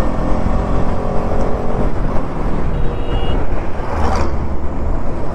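Motorcycle running along a road, ridden with steady wind rumble on the microphone, and a truck passing close alongside about four seconds in.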